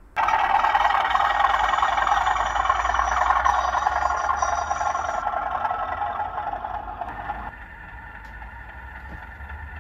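Sound-fitted OO gauge model diesel locomotives running on the layout, their engine sound played through small onboard speakers. It fades down and then drops sharply about seven and a half seconds in.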